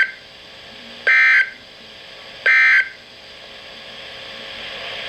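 NOAA Weather Radio EAS/SAME end-of-message data bursts: short, loud two-tone digital screeches, the tail of one at the very start and two more about a second and a half apart, signalling the end of the alert. Between and after them, steady radio hiss that slowly grows louder.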